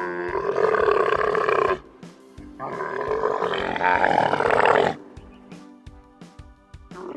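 A large animal giving two long, drawn-out calls of about two seconds each, then a short call near the end.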